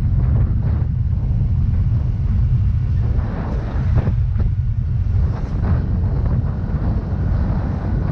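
Wind buffeting the microphone while riding a Yamaha Mio Gravis scooter, a steady low rumble, with the scooter's small single-cylinder engine and road noise running under it.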